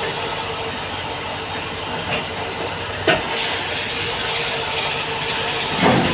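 Steady machine noise with a faint hum, broken by a sharp knock about three seconds in and a louder one near the end.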